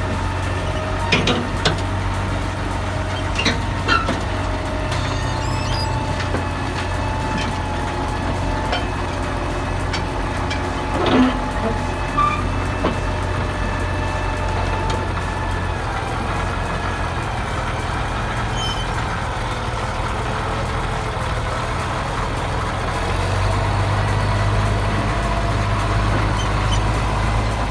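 Bulldozer engine running steadily under load, with a few short metallic clanks and thin squealing tones that waver in pitch. The engine grows louder near the end.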